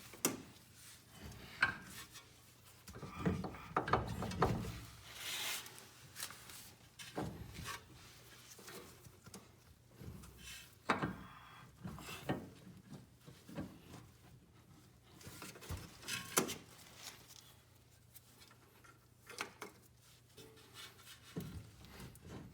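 Irregular knocks, clinks and rubbing of hand work on a 2011 Mercedes C300 4MATIC's front drive axle and wheel hub as the axle is worked into the wheel bearing, busiest about three to four seconds in.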